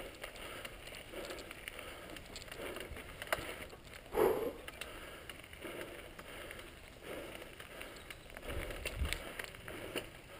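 Mountain bike rolling down a dirt singletrack: tyres crunching over dirt and stones, with scattered clicks and knocks from the bike over the rough ground and one short louder sound about four seconds in.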